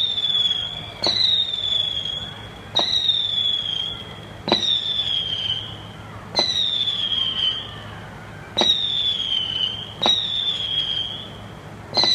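Fireworks going off one after another, about every one and a half to two seconds. Each is a sharp bang followed by a high whistle that falls slightly in pitch and fades within about a second.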